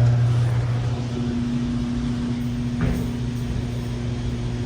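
Electric hot-air heat detector tester blowing with a steady hum while it heats a fixed-temperature heat detector towards its trip point. A short knock sounds about three seconds in.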